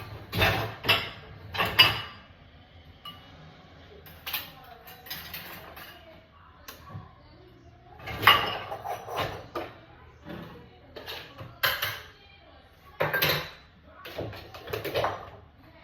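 Dishes and cutlery clattering and clinking in irregular bursts as dirty dishes are loaded into a dishwasher.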